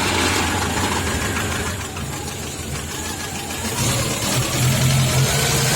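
Vehicle engine running just after being started, its note rising and getting louder about four seconds in. The owner is asking about extraneous noises from it, which he says are absent at idle.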